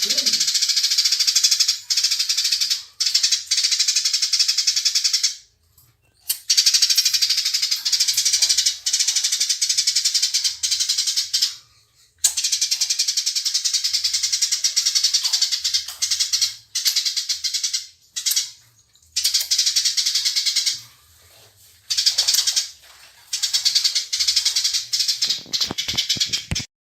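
Eurasian tree sparrows (burung gereja) fighting, giving a fast, dense, high chatter in long bouts broken by short pauses. The chatter stops abruptly near the end.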